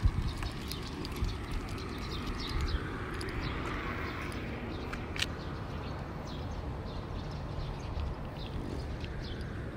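Roadside outdoor ambience: wind rumbling on the microphone, with many short high chirps and ticks scattered throughout.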